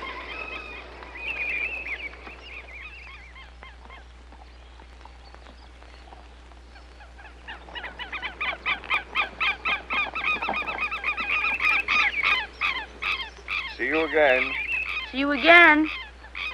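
Birds calling: a few faint calls at first, then from about halfway a fast run of short, repeated calls at roughly four a second, with a few louder, longer cries near the end.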